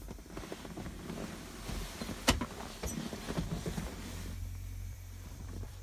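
Rustling and handling noises of someone moving about in a truck cab, with a sharp click a little over two seconds in, over a steady low hum.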